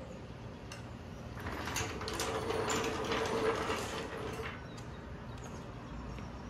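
Steel Pittsburgh floor jack rolled out from under the truck across a concrete floor: a rattling, scraping roll of about three seconds with a steady squeak through it, starting about a second in.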